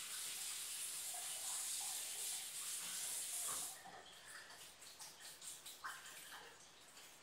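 Kitchen tap running into the sink as sorrel (hibiscus calyces) is rinsed, shut off abruptly a little under four seconds in. After that, soft clicks and rustles as the wet sorrel is handled in the sink.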